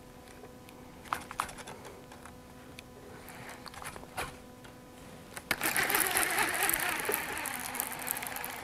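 A few light clicks and taps, then about five and a half seconds in a fishing reel starts being cranked fast, a dense whirring retrieve of the line that runs on to the end and is the loudest sound.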